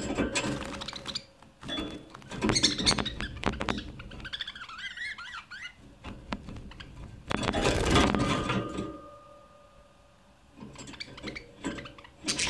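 Budgerigars chattering: irregular bursts of clicks and scratchy noises, with a short warble about four to five seconds in.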